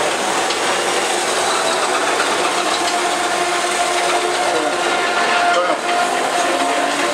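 Steady din of race car engines running on the circuit, with faint indistinct voices underneath.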